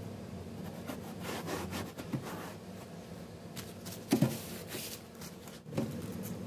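A blade scraping through a sheet of gritty non-skid material in drawn cutting strokes, with two sharp knocks about four and six seconds in, over a steady low hum.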